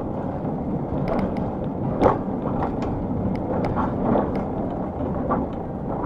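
Road noise from a motorhome on the move, heard from inside the cab: a steady low rumble with frequent small rattles and clicks, and one louder knock about two seconds in.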